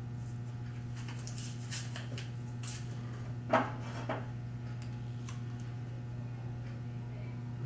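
Marker writing on chart paper: short scratchy strokes, then a loud squeak of the marker tip about three and a half seconds in and a shorter one about half a second later. A steady low hum runs underneath.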